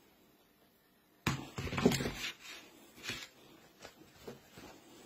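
Hands handling an aluminium cat-food pâté tray: a sudden burst of crinkling about a second in, then scattered short clicks and crinkles.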